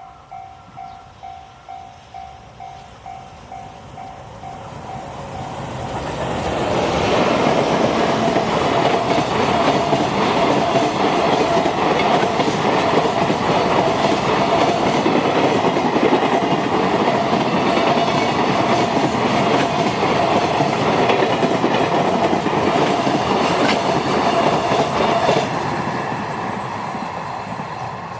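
A level-crossing alarm rings at about two rings a second while a train approaches. From about seven seconds in, a long freight train hauled by an EF510 electric locomotive passes the crossing for nearly twenty seconds, its wheels clattering over the rail joints and almost drowning the bell. The bell stands out again as the train fades.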